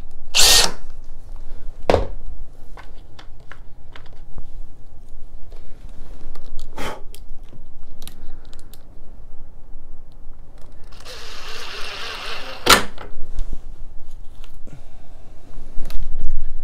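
Cordless drill with a self-centering bit running in a few short bursts, drilling pilot holes through a door hinge's screw holes. Between the bursts come small clicks of screws and the hinge being handled.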